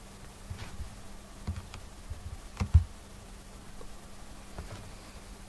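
A few scattered, irregular clicks of computer keys, the loudest about halfway through, over a faint steady hum.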